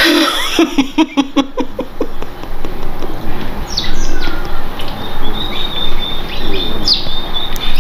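A woman crying out while lying on the floor, beginning with a run of short, rapid sobs. A thin, high-pitched whistling tone comes and goes for several seconds in the second half.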